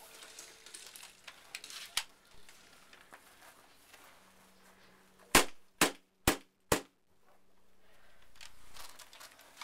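Airsoft gun firing four quick single shots, about two a second, each a sharp snap, with a few fainter clicks earlier.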